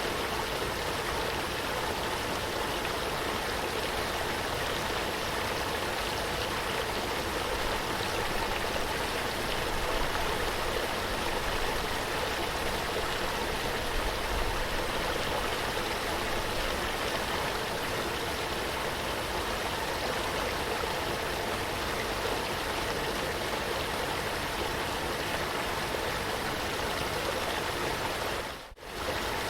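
Running water flowing steadily, an even rushing with no break until it cuts out for a moment near the end.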